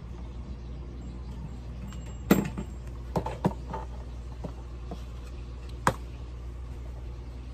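Small ornaments being picked up off a shelf and handled: a few separate knocks and clacks, the loudest about two seconds in and the last near the end, over a steady low hum.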